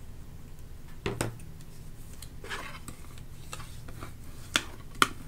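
Hands working cardstock and a glue bottle on a cutting mat: paper rustling and rubbing, a soft knock about a second in, and two sharp clicks or taps near the end.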